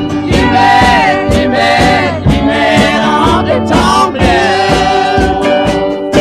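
Country music: several voices singing over guitar and slide guitar, with a steady beat.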